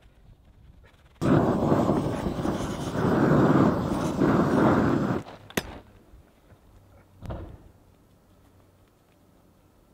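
A small gas roofing torch burning with a steady, even noise for about four seconds, starting and stopping abruptly, as it heats bitumen roofing to melt it down. A sharp click follows, then a short knock.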